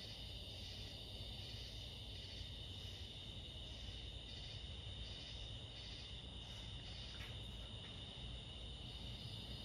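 Hampton Bay Roanoke ceiling fan running slowly with a steady low hum, sluggish because of a bad capacitor. A steady high-pitched chirring with soft regular pulses runs over it.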